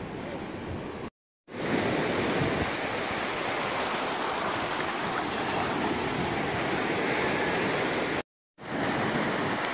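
Sea surf rushing in steadily over a sandy beach and around rocks. The sound drops out briefly about a second in and again near the end, where the shots are cut.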